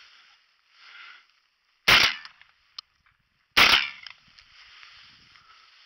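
Two shotgun shots fired at a flushed pheasant, about a second and a half apart, each a sharp bang with a brief echo.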